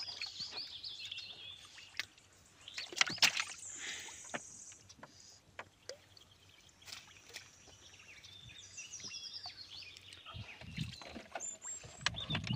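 Water splashing and knocking as a fishing net is worked in the shallows, loudest in a cluster of splashes about three seconds in. A bird chirps in quick falling runs at the start and again around nine seconds in.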